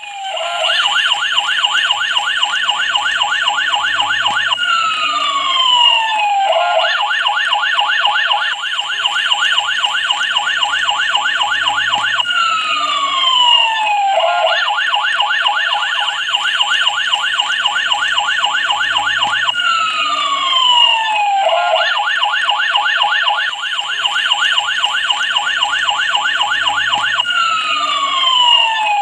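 Electronic siren sound effect looping. A fast warbling tone lasts about five seconds, then gives way to a few quick falling whoops, and the cycle repeats about every seven and a half seconds.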